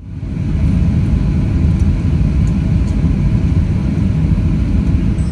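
Jet engine and airframe rumble of a Boeing 737 heard from inside the passenger cabin while the plane is on the ground. It is loud and steady with a deep low end, and fades in over the first half second.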